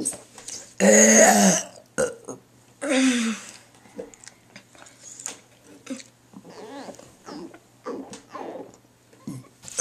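A person burping deliberately, twice: a long, loud burp about a second in and a shorter one about three seconds in.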